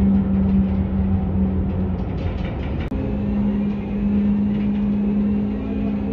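Steady droning hum of a ferry's engines, heard from its open deck, over a low rumble; the hum shifts slightly in pitch about three seconds in.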